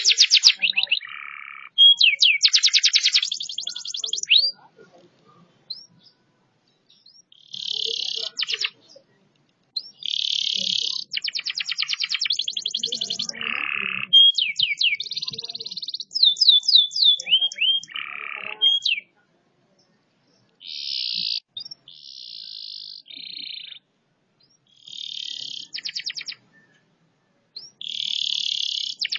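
Domestic canary singing: phrases of fast rolling trills and runs of sliding whistled notes, with short pauses between phrases.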